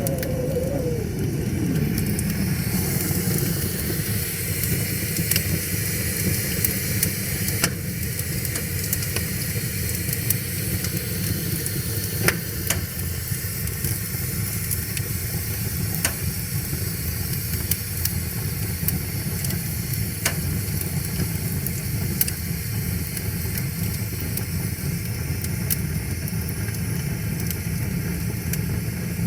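Wood fire crackling, with sharp pops every few seconds, over a steady low rush of flowing river water. A tone slides down in pitch during the first two seconds.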